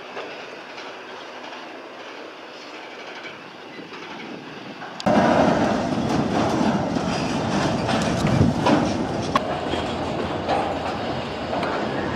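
A freight train of empty container flat wagons rolling by, the wheels clattering with many scattered clicks; faint and distant at first, then suddenly much louder and close about five seconds in.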